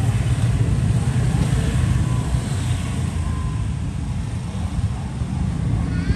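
Steady low rumble of road traffic, with no distinct clicks or strikes standing out.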